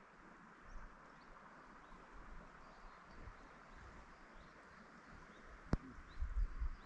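Outdoor ambience: a steady faint rushing hiss with small bird chirps scattered through it. A single sharp click comes near the end, followed by low rumbling bumps.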